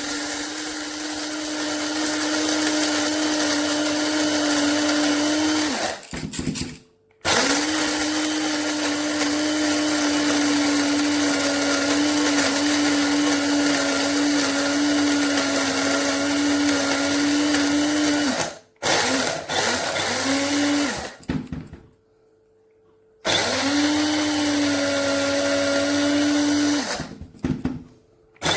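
A 200 W KYG electric blade grinder (stainless steel blades) running in several long stretches with a few short bursts between, its motor holding a steady whine under the whirr of the blades. It stops abruptly each time the lid is turned back.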